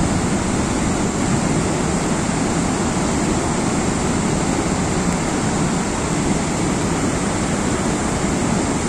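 Steady rushing of a cold lahar, a volcanic mudflow from Semeru, running through the river gorge below as steam rises off it.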